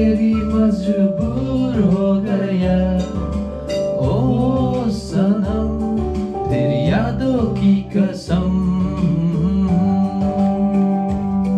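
Karaoke singing: a voice singing over a recorded instrumental backing track.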